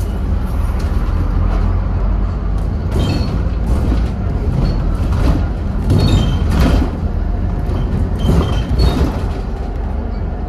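Scania N230UD double-decker bus heard from inside, its diesel engine giving a steady low drone as it drives along. Several short rattles and squeaks from the bus body come between about three and nine seconds in.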